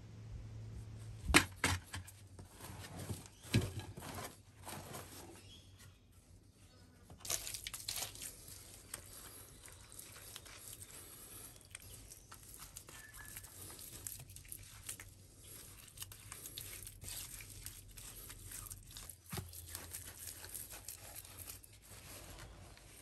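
Hands working wet clay and loose soil on the ground, with close crumbly scraping and crackling. Two sharp knocks come about a second and a half in and again two seconds later.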